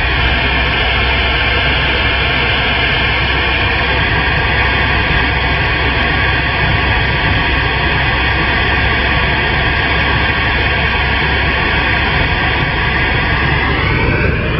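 CB radio receiver putting out loud, steady static on an open channel, with faint steady whistle tones through the hiss and a rising whistle just before the end.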